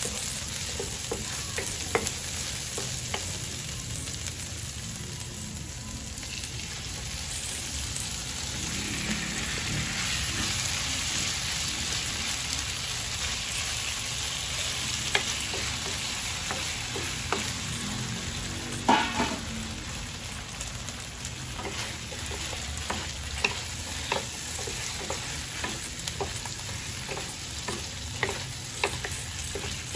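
Marinated chicken pieces sizzling in hot oil in a pan with sautéed garlic and onion, stirred with a utensil that clicks and knocks against the pan now and then, one knock louder about nineteen seconds in.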